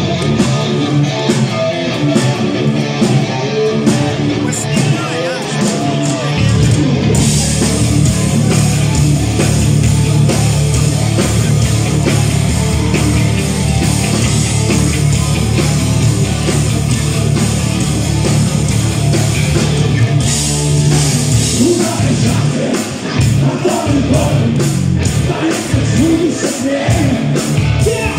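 Heavy metal band playing live with a singer: electric guitar at first, with bass and drums coming in about seven seconds in.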